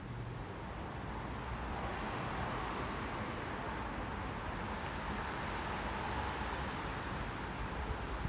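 Wet city street noise: a steady hiss of tyres on a wet road and rain, swelling slightly about a second in as traffic passes.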